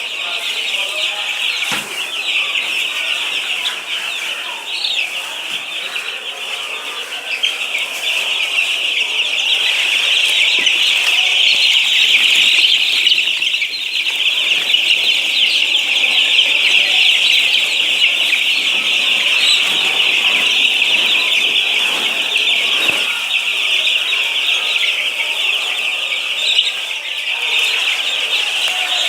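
A large flock of poultry calling all at once, a dense, unbroken high-pitched chorus that swells louder through the middle.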